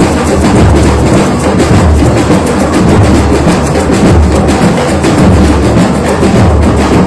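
Batucada drum band playing: deep bass drums keep a pulsing beat under a dense, fast rattle of smaller drums and percussion.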